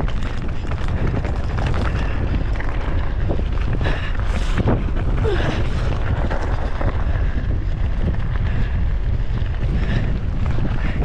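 Wind buffeting the microphone of a mountain bike's body-mounted camera as the bike rolls over a rocky dirt trail. Tyres crunch on gravel and stones, and the bike rattles with many small clicks and knocks.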